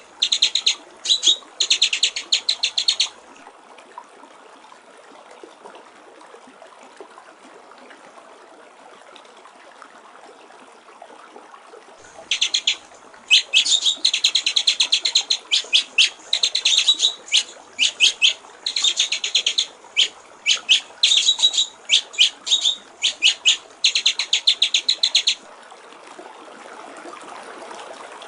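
White-rumped shama (murai batu) singing in bursts of fast, rattling high notes, briefly at the start and then in a long run of repeated phrases after a pause of several seconds. Steady trickling water runs underneath and grows louder near the end once the bird stops.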